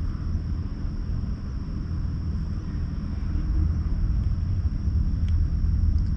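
A cat purring steadily while it is stroked, a low continuous rumble that grows a little louder over the last couple of seconds.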